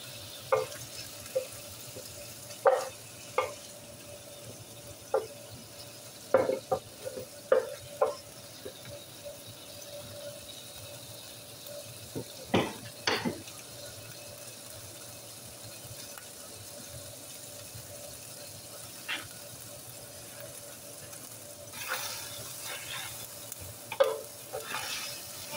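Diced chicken simmering and sizzling in its own watery juices in an electric skillet: a steady low hiss broken by scattered sharp pops and spits as the liquid cooks off.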